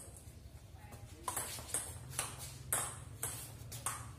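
Table tennis rally: the ball clicks sharply off the paddles and the tabletop in an even run of hits, about two a second, starting a little over a second in.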